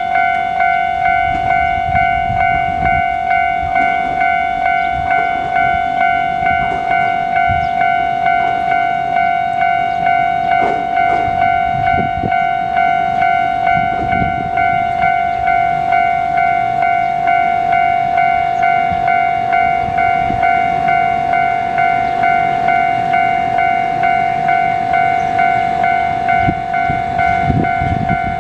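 Japanese level-crossing alarm: an electronic bell tone ringing over and over at an even pace while the crossing is active.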